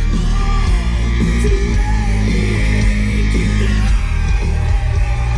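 Heavy rock music with electric guitar, heavy bass and singing.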